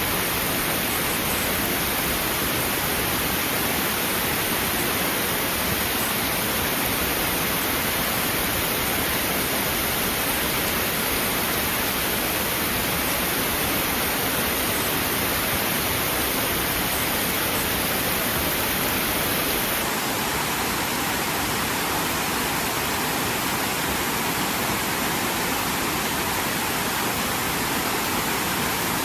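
Waterfall: a steady, unbroken rush of falling water with no lull; its hiss changes slightly in tone about two-thirds of the way in.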